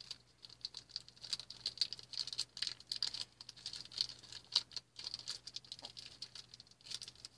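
Rustling and crinkling of small plastic toy packaging being handled and opened by hand, with many irregular small clicks and scratches.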